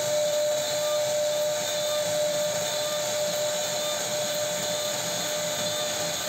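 CNC router spindle running with a steady high whine while its bit carves a relief pattern into a wooden board, over a constant rushing cutting noise.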